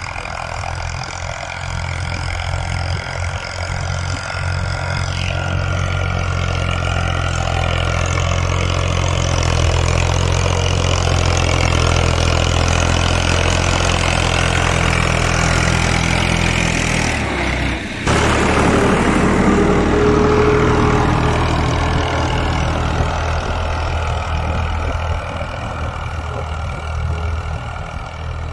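Ghazi tractor's diesel engine running steadily under load while pulling a five-tine plough through the soil. About 18 seconds in the sound breaks off sharply and picks up again as another stretch of tractor engine running.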